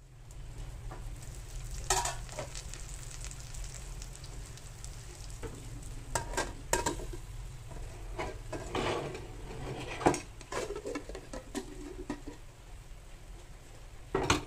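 Egg and cabbage omelette frying in a stainless steel pan with a steady low sizzle, broken by several clinks and knocks of a steel lid and a ceramic plate against the pan as the omelette is turned out, the loudest just before the end.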